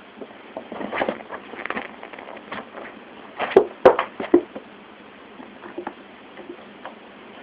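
A kitten scampering and pouncing on bedding and a wooden floor: irregular light taps and rustles, with a cluster of sharper knocks about halfway through.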